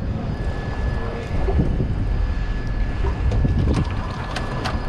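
Suzuki outboard motors running at idle with a steady low rumble, mixed with wind on the microphone; a few short sharp ticks come near the end.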